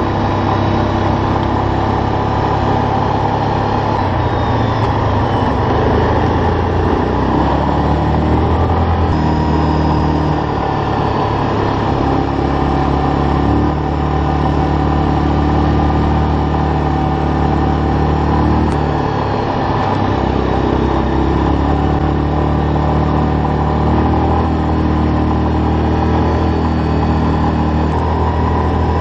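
ATV engine running as the quad is ridden along a dirt road, its pitch stepping up and down every few seconds as engine speed changes.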